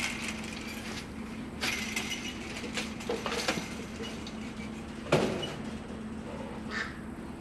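Galvanized chain-link kennel panel rattling and clanking as it is handled and moved, with several metallic clatters and one loudest clank about five seconds in. A steady low hum runs underneath.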